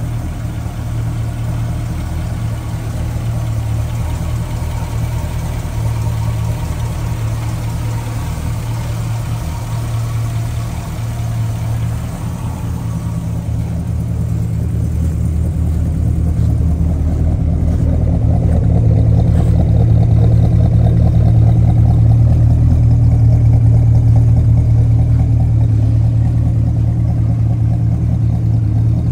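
Holden HQ Monaro V8 idling steadily with a low, even exhaust note. It grows louder over the second half as it is heard close to the twin rear tailpipes.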